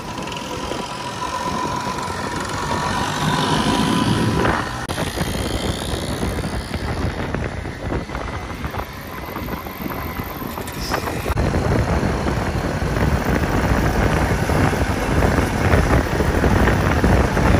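Vintage two-stroke Vespa scooters running on the move, engine noise mixed with wind and road noise. The sound changes abruptly about five and eleven seconds in and grows louder near the end.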